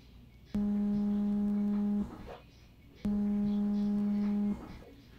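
Smartphone vibrating on a glass shop counter for an incoming call: a steady low buzz in two pulses of about a second and a half each, a second apart.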